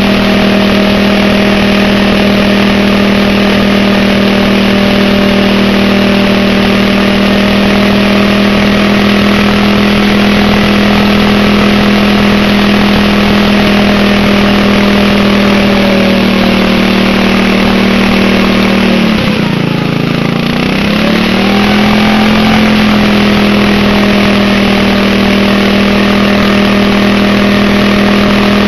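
Lawn tractor engine running flat out, held at a steady high speed while the rear tyre spins in the dirt. About two-thirds of the way through the engine speed sags, drops sharply, then climbs back up to full speed.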